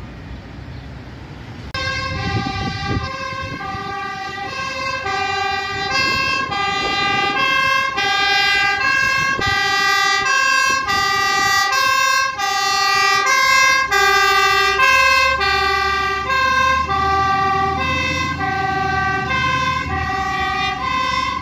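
Fire engine's two-tone siren, switching between a high and a low tone about every two-thirds of a second. It starts suddenly about two seconds in. The truck's engine rumble comes up under it in the second half as the vehicle approaches.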